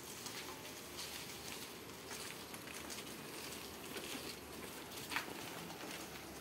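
Sandalled footsteps and light scuffs on paving as a motorcycle is wheeled by hand with its engine not running, with a sharp click about five seconds in.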